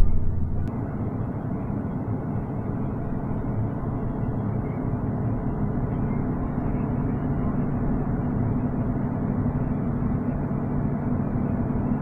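A John Deere combine running with its unloading auger emptying the grain tank, heard from inside the cab as a steady mechanical drone.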